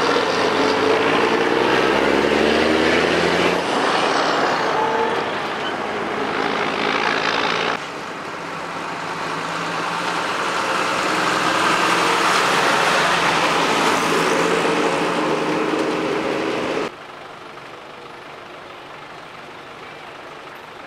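Old Soviet-built ZIL-130 trucks driving past: an engine note falling in pitch as a tanker truck goes by, then, after a sudden cut about 8 seconds in, a box truck's engine growing louder as it approaches. A second sudden cut near the end leaves fainter, distant truck and traffic noise.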